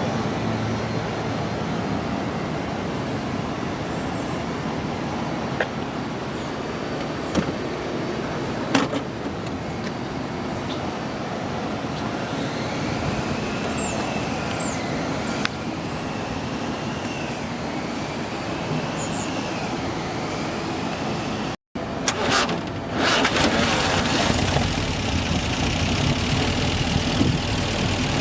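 A steady running noise. After a brief cut, the MGA's 1800 four-cylinder engine runs louder and steadily, with a deeper low end, through the rest.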